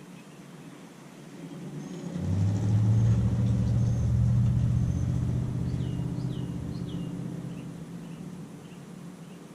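A motor vehicle's engine passing by: it swells about two seconds in, holds loud for a few seconds, then slowly fades away. A few short, falling bird chirps are heard in the middle.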